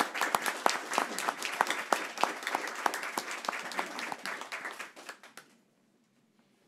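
Applause from a small group, with individual hand claps standing out, that thins out and stops about five and a half seconds in.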